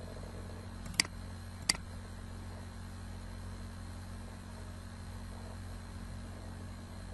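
Two sharp computer mouse clicks about a second in, under a second apart, over a steady low electrical hum and hiss.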